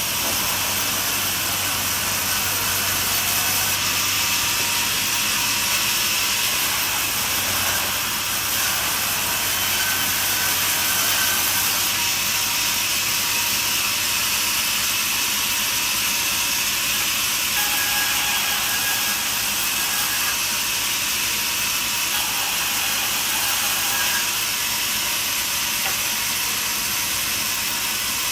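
Portable band sawmill running through a cut: a steady, unbroken hiss of blade and engine.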